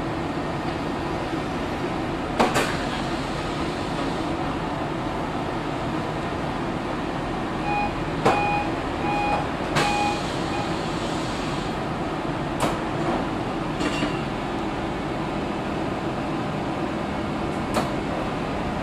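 Interurban tram standing with a steady hum from its on-board equipment, broken by several sharp knocks. About eight seconds in comes a run of short, evenly spaced beeps.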